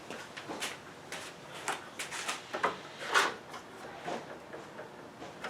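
Irregular light knocks, taps and scrapes of small parts being handled and set down on a workbench, the loudest about three seconds in.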